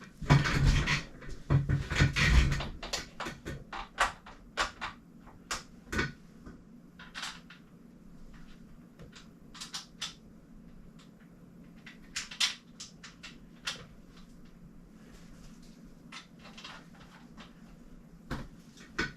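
Small bike parts and hand tools being handled: a dense clatter of knocks in the first couple of seconds, then scattered sharp clicks and taps as a rear derailleur is fitted to the frame.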